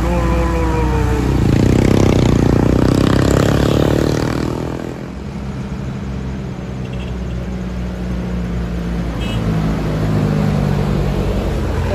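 Engines of heavily loaded sugarcane trucks running as they pass close on a road bend, with motorcycles among them. A loud vehicle passes about two seconds in, and near the end another truck's engine grows louder as it approaches.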